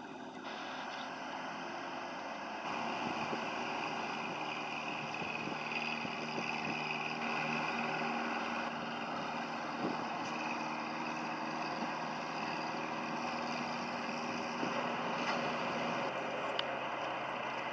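Rebuilt Atomic 4 four-cylinder gasoline inboard engine running steadily as the small wooden boat motors along under way, over a rush of water and wind on the microphone.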